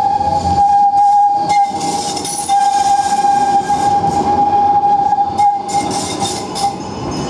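Tram wheels squealing as a low-floor tram takes the tight curve of a turning loop close by: one steady high squeal over the rumble of the wheels, with a couple of clunks from the rails. The squeal stops near the end.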